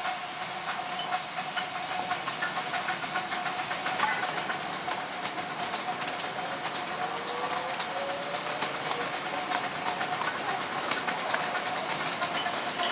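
A 7¼-inch gauge miniature steam train running along its track: a steady hiss with frequent light clicks of the wheels on the rails and a thin, steady high note.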